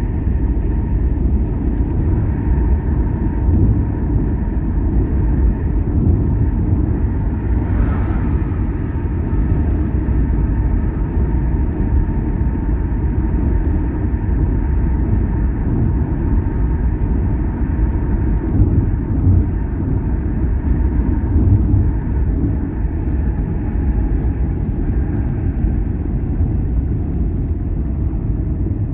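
A car driving along a road: a steady low rumble of engine and tyre noise, with a faint steady whine running through it.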